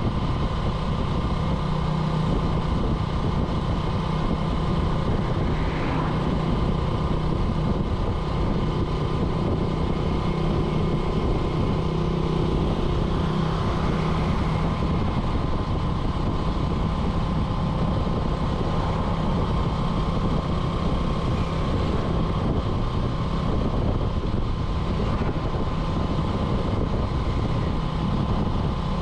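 Small motorcycle's engine running at a steady, even speed while being ridden, a constant hum over a steady rush of noise.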